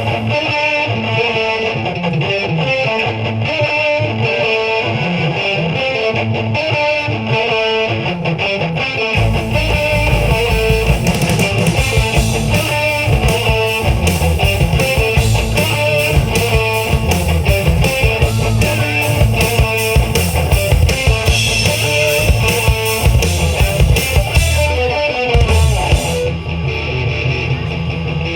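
Live rock band playing: an electric guitar riff plays alone, then drums and bass guitar come in about nine seconds in and the full band carries on, with a short break near the end.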